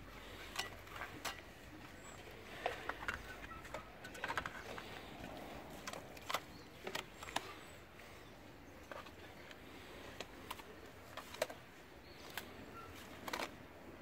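Mason's trowel scraping mortar and knocking against a bucket and hollow ceramic bricks, in irregular short clicks and scrapes.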